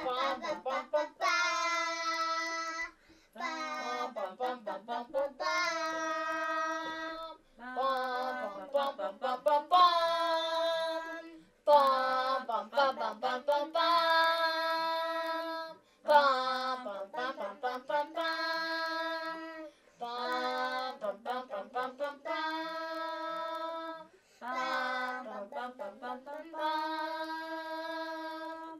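A child singing a wordless tune in short phrases. Each phrase slides through a few quick notes and ends on a long held note.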